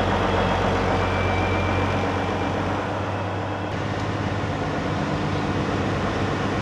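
Passenger river ferry's engine running steadily under way: a low, even hum with a steady rushing noise over it.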